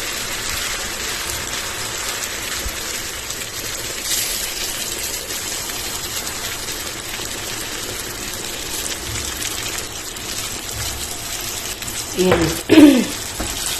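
Chicken breast and a red sauce sizzling in a hot pan, the sauce just added: a steady hiss that holds even for about twelve seconds.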